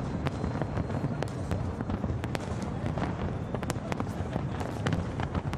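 Aerial fireworks shells bursting in a big display: many sharp bangs and crackles at an irregular pace over a continuous low rumble.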